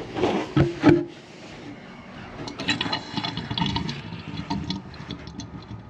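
Toilet shut-off valve being opened with the supply line held into a container: a short hiss about a second long, then light clicks and rattles of the fittings being handled. Little water comes through, because the house supply is shut off.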